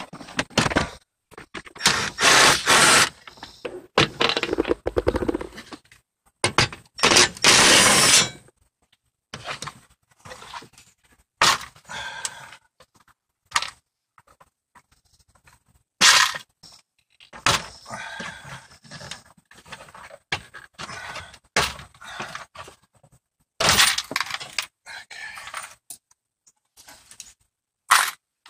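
Plastic interior trim of a Lexus RX300 being pried and pulled off the dash and pillar. There are scrapes, cracks and snaps as the retaining clips pop loose, with two longer scraping spells in the first several seconds and a sharp crack about halfway.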